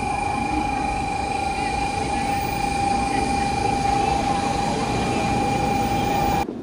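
Shinkansen bullet train running: a loud, steady rumble and rush with a constant high-pitched whine on top, starting and cutting off abruptly.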